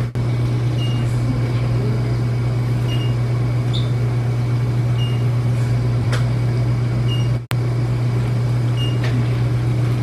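Steady low hum of a bedside oxygen concentrator, with a short high tone repeating about every two seconds and a few light clicks.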